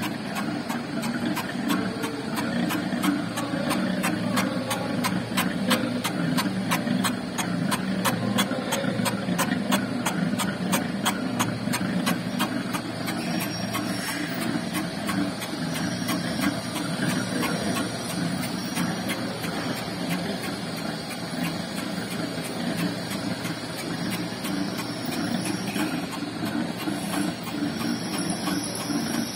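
Vertical lathe running, its table turning a large workpiece: a steady mechanical hum with a fast, even ticking of several ticks a second through the first half that fades out about halfway.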